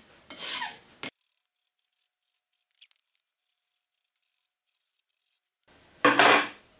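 A flat hand file scraping along the edge of a freshly machined metal tailstock, deburring and softening the sharp edges. There are two short strokes, one shortly after the start and a louder one near the end, with several seconds of silence between.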